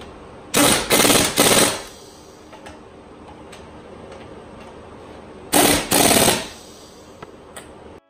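Pneumatic impact wrench hammering lug nuts tight on a Corvette wheel. It runs in short rattling bursts: three in quick succession about half a second in, then two more a little past halfway.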